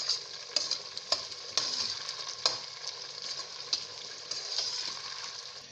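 Oil and tomato base sizzling in a cooking pot as it is stirred, with water mixed in a little at a time. The spoon knocks against the pot several times.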